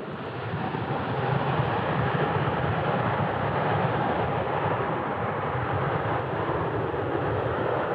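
Airbus A350-900's Rolls-Royce Trent XWB turbofans spooling up to take-off thrust: a steady jet roar that swells over the first second or so and then holds, as the airliner starts its take-off roll.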